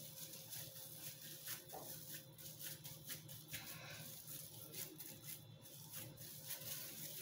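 Faint rustling and crinkling of plastic film around a raw ground-meat roll as it is rolled and pressed by hand, with scattered soft clicks.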